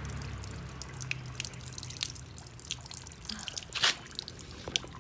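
Water running from a tap onto a wet stone floor, splashing and dripping in many small scattered drops, with one louder click about four seconds in.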